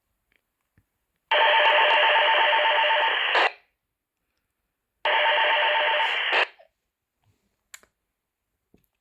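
Toy walkie-talkie speaker giving two bursts of static, about two seconds and then a second and a half long, each with a faint pulsing tone and a click as it cuts off: another handset keying up on the channel.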